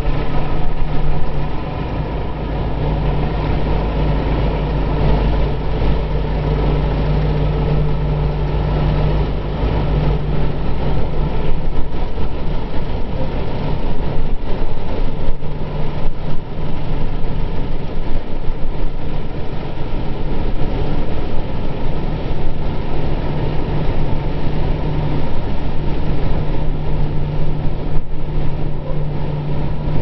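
Kubota M6040 tractor's diesel engine running steadily under load as it pulls a disc plough through waterlogged mud, with the churn and splash of mud and water around the wheels and discs.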